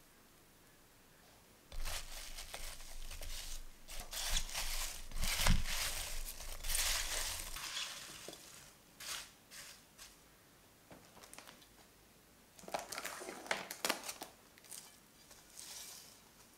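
Diced apples with sugar and cinnamon being stirred and tossed with a spatula in a glass bowl, a run of knocks and rustling for about six seconds. Near the end, plastic cling wrap crinkles as it is stretched over the bowl.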